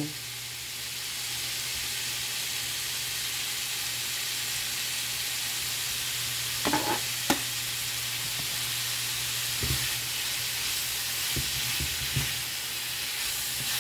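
Sliced smoked turkey sausage sizzling as it sautés in a frying pan, a steady hiss over a low steady hum. A couple of brief clicks come about seven seconds in, and toward the end a spatula stirs the slices around the pan with a few knocks.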